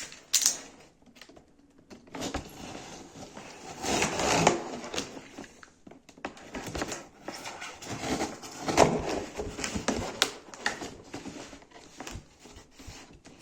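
Hands opening a parcel: packaging rustling and tearing in irregular bursts, the loudest about four and nine seconds in, with scattered clicks and knocks of handling.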